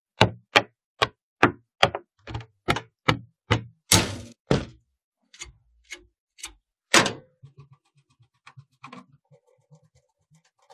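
Rapid run of sharp knocks on computer hardware, about two or three a second, then a few scattered knocks and a louder one about seven seconds in, followed by faint small clicks while parts are handled.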